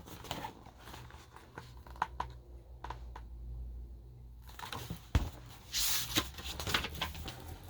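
Paper rustling and small clicks from a picture book's pages being handled and turned, with a louder paper swish about six seconds in.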